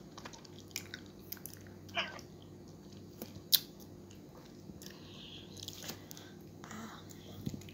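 Close-up mouth sounds of someone eating ripe mango slices: soft chewing with scattered wet smacks and clicks, the sharpest about three and a half seconds in, over a faint low hum.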